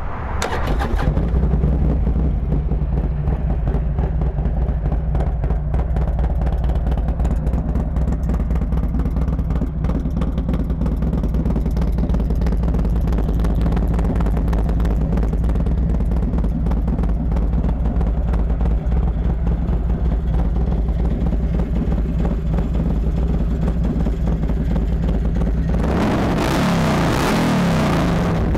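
Harley-Davidson 103-cubic-inch fuel-injected Twin Cam V-twin idling loudly and steadily through a D&D 2-into-1 Fat Cat exhaust with race baffles. About 26 seconds in the throttle is blipped once, the revs rising and falling back to idle.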